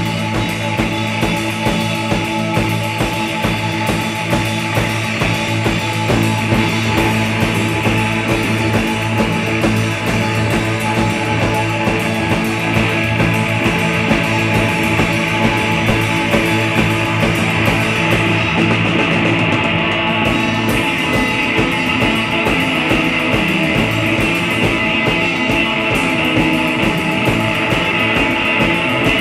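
A live rock band playing loud, dense music: electric guitar and drums, with sustained droning tones over a steady beat.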